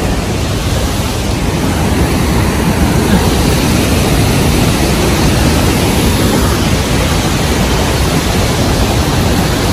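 Steady, loud roar of rushing water from Victoria Falls on the Zambezi River, an even rush with no breaks.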